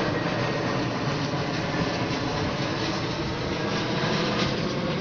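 Steady jet engine noise from a Boeing 717's twin Rolls-Royce BR715 turbofans as the airliner passes on approach.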